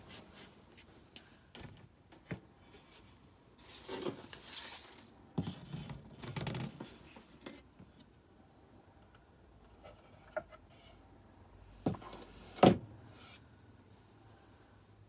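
Craft items being handled and moved about on a work table: scattered rustling and light knocks, with two sharp knocks late on, the second the loudest.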